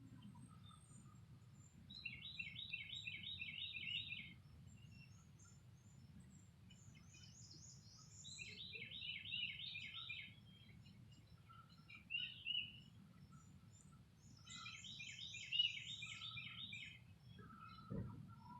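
Songbirds singing: one bird repeats a phrase of about ten quick, even notes, roughly two seconds long, three times about six seconds apart, with higher, thinner song from another bird between and over it. A steady low rumble of background noise lies beneath, and there is a brief thump near the end.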